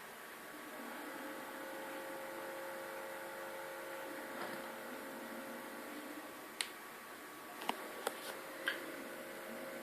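Bosch SMS69M58EU dishwasher running on its TurboSpeed program: a steady hum with a faint whine. Several sharp ticks come in the second half.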